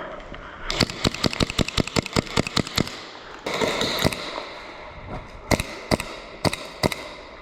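Airsoft guns firing: a quick string of about a dozen sharp shots at roughly six a second, a short noisy rush, then four single shots about half a second apart.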